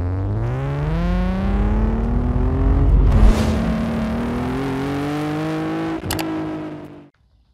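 Car engine and exhaust accelerating hard, pitch rising steadily, then a gear change about three seconds in and a second climb in revs. A sharp click comes near the end, just before the sound cuts away.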